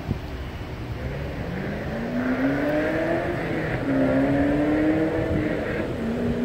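A road vehicle accelerating, its engine note climbing in pitch three times and dropping back between climbs, growing louder toward the end.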